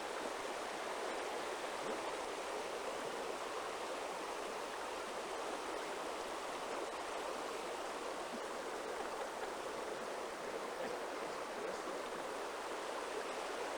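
Steady rushing of flowing water from a stream, even and unbroken.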